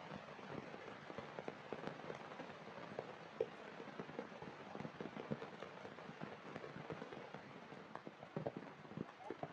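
Heavy rain falling on wet ground and puddles: a steady hiss of falling rain with a dense, crackling spatter of drops, and one sharper drop hit about three and a half seconds in.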